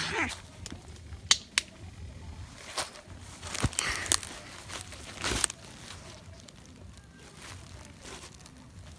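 Rustling and crinkling with a few sharp clicks, in irregular short bursts, the loudest about four and five and a half seconds in.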